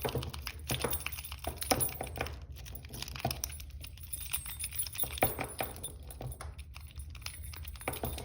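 Metal tools working a Brinks weather-resistant padlock, with many irregular sharp metallic clicks and clinks.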